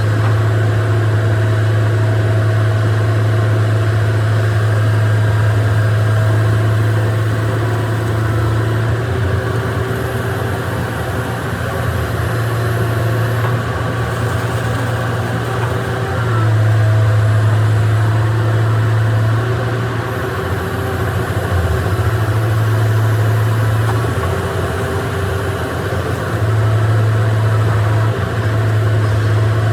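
Excavator's diesel engine running, a steady low drone that wavers and changes note several times before settling back.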